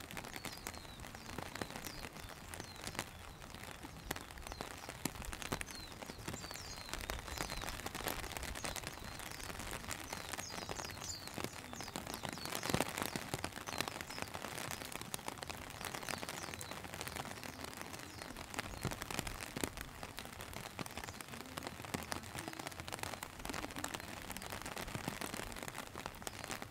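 Steady rain, with a dense patter of individual drops striking close by.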